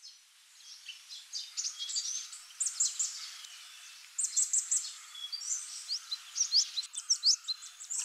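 Birds chirping: many short, high-pitched chirps from several birds overlapping, growing louder and denser about halfway through.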